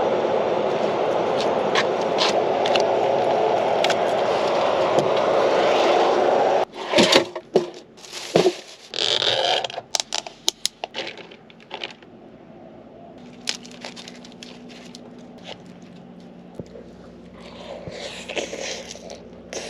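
A steady hiss for the first several seconds that cuts off suddenly, followed by scattered scrapes and clicks of a utensil working through food in a container.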